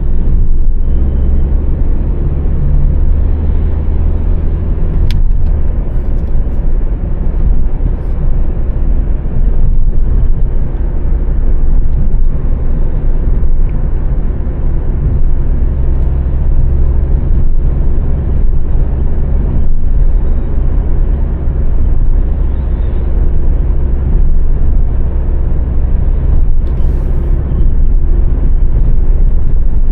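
A 2006 Honda Civic's 1.8-litre four-cylinder petrol engine and road noise while driving: a steady low drone whose engine note shifts a little with speed.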